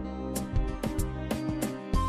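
Music with a steady beat over held chords.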